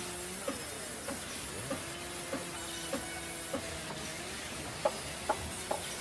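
Band sawmill running while timber is fed through the blade. Its hum drops in pitch about half a second in and climbs back about two seconds in, dips briefly again near four seconds, with a regular light ticking about every 0.6 s and three sharper clicks near the end.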